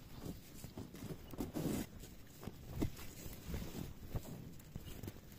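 Irregular faint knocks, taps and rustling from people moving and handling things, with no steady or tonal sound among them.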